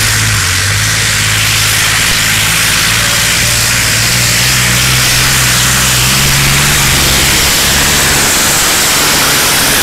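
Heavily modified tractor-pulling tractor running flat out, very loud, as it drags the weight sled down the track. The engine note climbs a little through the middle of the pull and drops back near the end.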